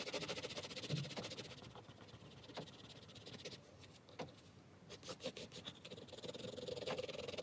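Derwent Inktense ink pencil shading on paper: fast back-and-forth scratching strokes, easing off about two seconds in and picking up again near the end.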